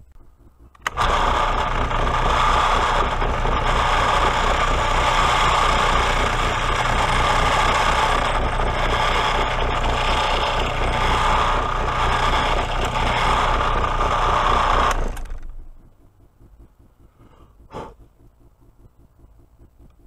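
Drill press motor starting about a second in and running steadily while a 1/4-inch steel twist bit bores out a small steel nut clamped in a vise, then shutting off after about fifteen seconds. A single short knock follows near the end.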